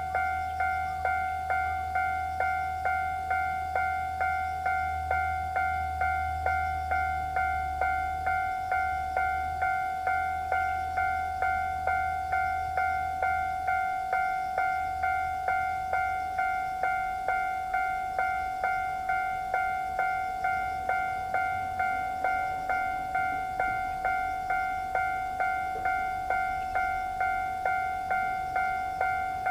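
Japanese railway level crossing's electronic alarm ringing its standard two-tone "kan-kan", struck evenly about twice a second. A low rumble runs under it through the first half and then fades.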